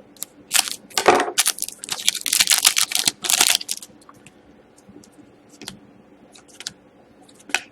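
Trading cards being handled by hand, a quick run of clicks and rustles as cards are flicked and slid against each other, then a few scattered light taps over the last few seconds.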